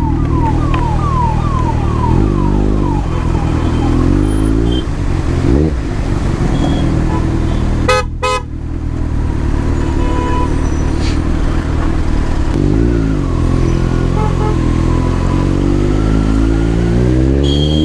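Motorcycle engine running steadily in traffic, blipped up several times. About eight seconds in, a vehicle horn honks twice briefly. Near the end the engine revs up with rising pitch as the bike accelerates.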